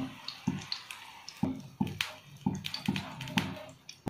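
Steel slotted skimmer clicking and knocking against the frying pan as fried pithas are scooped out of hot oil, over a light sizzle of frying oil that fades after the first second.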